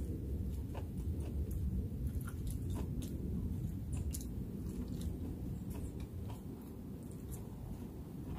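A person biting and chewing crunchy cooked lion's mane mushroom, with scattered small crunches, over a steady low rumble.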